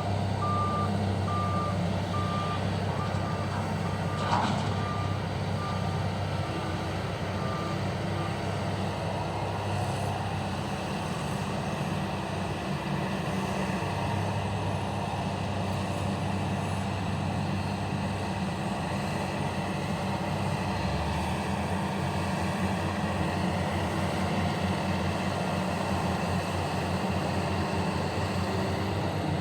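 Heavy diesel machinery running steadily, with a truck's reversing alarm beeping at a steady rate for the first eight seconds or so. A single clank comes about four seconds in.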